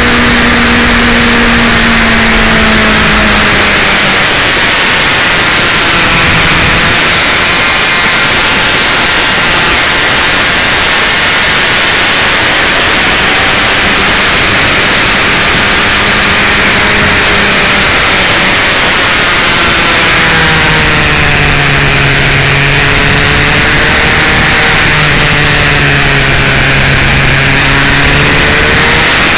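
Motorcycle engine heard from the rider's seat under loud, steady wind rush, its pitch rising and falling with the revs through a series of bends.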